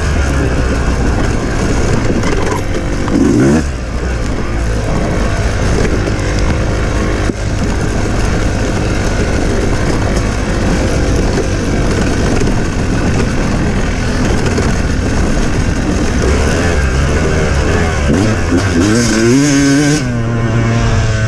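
Off-road racing engine running hard under load, its pitch rising and falling as it revs up and down, with quick revs about three seconds in and again near the end.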